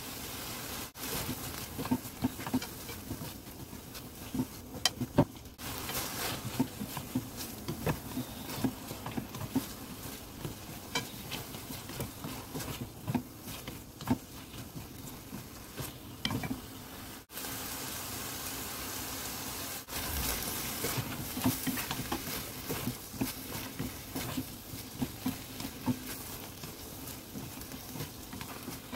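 Sweet potato stems sizzling as they are stir-fried in doenjang sauce in a stainless steel pan, with frequent clicks and scrapes of wooden chopsticks and a spatula against the pan.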